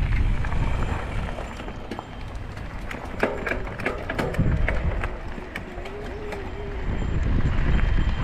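Wind buffeting the microphone of an action camera on a moving electric mountain bike on a dirt trail, with clicks and rattles from the bike over rough ground. The wind eases in the middle, where the rattling is clearest, and picks up again near the end.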